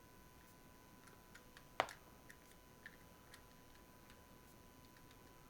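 Near quiet, with faint small clicks from 1/64 diecast toy car parts being handled and fitted together, and one sharper click a little under two seconds in.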